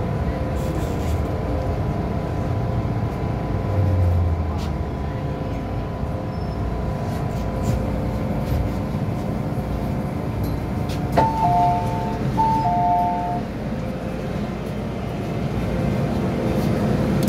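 Steady running noise inside an MTR M-Train car on the move, with a faint steady whine that fades out about halfway through. About two-thirds of the way in there is a click, then a two-note chime, a higher note then a lower one, sounds twice over the train's speakers.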